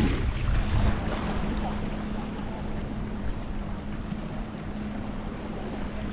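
Steady hum of a boat motor over a wash of wind and surf. Wind buffets the microphone at the start, then eases within the first second or so.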